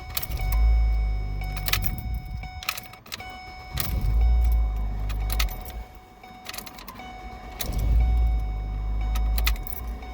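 Ford Escape / Mazda Tribute engine turned over with the key three times, about two seconds each, with key and switch clicks between: the repaired ignition switch now cranks the engine every time.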